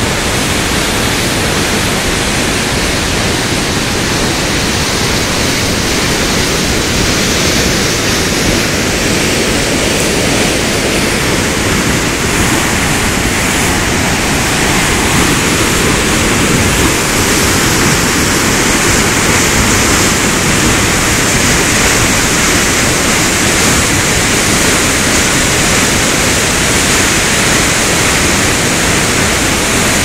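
Waterfall's water rushing and splashing onto rocks: a loud, steady, unbroken rush.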